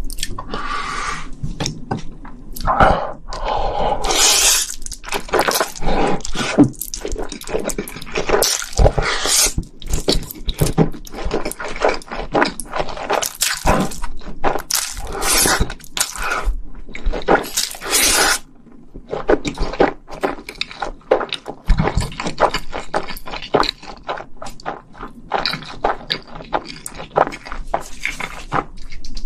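Close-miked slurping and wet chewing of Buldak spicy stir-fried instant noodles, with many sharp mouth clicks. Several long slurps come in the first half, then mostly chewing and clicks.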